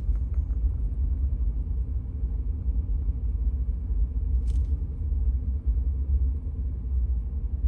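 Steady low rumble inside the cab of a Honda Ridgeline pickup driving slowly over a snow-covered road, with one short click about four and a half seconds in.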